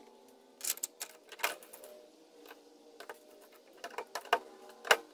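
Sharp metal clicks and clinks as a small steel collet and a thin steel rod are handled and seated in a lathe collar, several scattered taps with the loudest near the end, over a faint steady hum.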